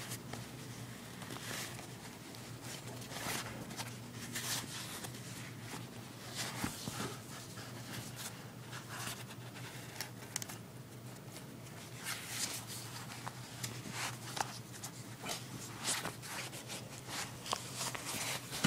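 Handling noise: irregular rustles, taps and clicks, over a steady low hum.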